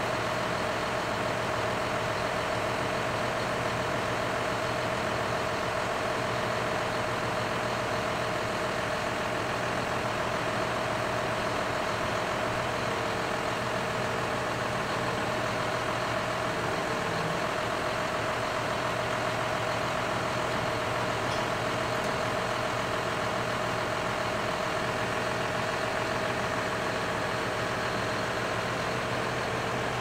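John Deere tractor's diesel engine idling steadily, with an even hum and no change in speed.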